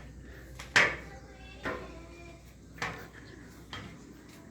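Four short, sharp knocks or clatters about a second apart, the first the loudest, over faint room sound.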